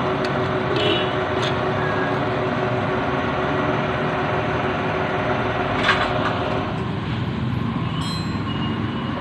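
Steady engine-like mechanical drone, with a few light metallic clinks of hand tools on the motorcycle's cylinder-head hardware.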